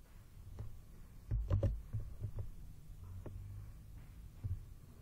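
A few soft, low thumps with faint clicks, scattered and irregular, the loudest pair about a second and a half in, over quiet room tone.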